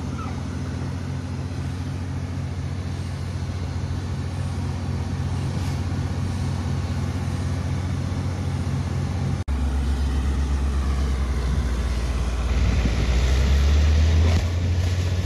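Well-drilling rig's engine running steadily with a fast pulsing beat while drilling into rock. It breaks off for an instant about nine seconds in and comes back deeper and louder, swelling for a couple of seconds near the end.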